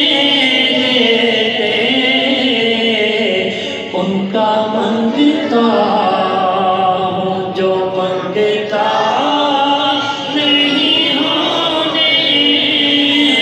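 A man singing a naat, an Islamic devotional poem, solo and without instruments, amplified through a handheld microphone. He holds long, wavering notes, with short breaks about four and nine seconds in.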